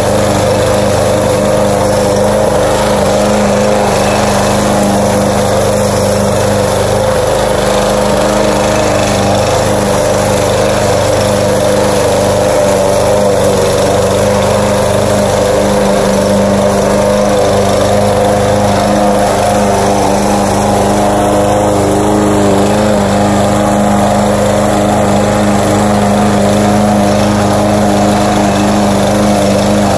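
Petrol walk-behind rotary lawn mower running steadily while cutting grass, its engine holding an even pitch and level.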